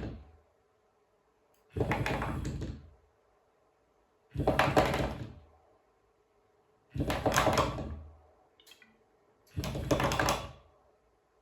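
Bellman & Symfon bed shaker (vibrating pad) pulsing on and off: four buzzes of about a second each, roughly every two and a half seconds, signalling that the doorbell has been pressed.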